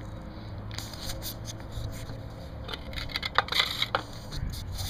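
Scrapes, clicks and knocks from handling the old McCulloch 200 chainsaw, with a cluster of sharper knocks about three and a half seconds in; the engine is not running.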